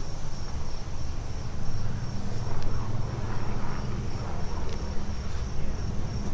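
An engine running steadily, a low rumble with a faint steady high whine above it.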